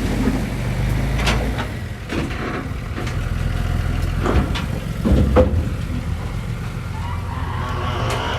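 Heavy diesel earthmoving machinery running with a steady low rumble, with several sharp metallic clanks and knocks scattered through it.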